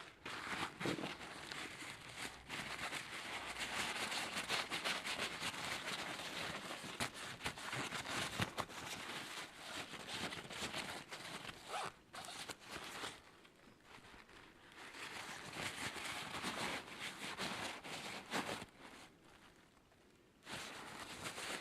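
Paper towel rubbing hard over a nickel boron-coated AR-15 bolt, wiping the carbon off it: a dense scratchy rustle in two long bouts with a short break between.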